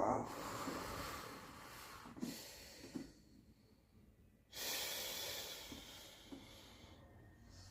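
A person breathing out heavily twice, each a long hissing exhale that fades away over about two seconds. The second begins about four and a half seconds in.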